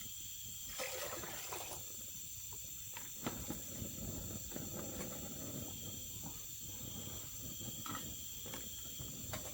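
Night insects trilling steadily at a high pitch, with scattered small clicks and knocks and a low rustle of handling underneath.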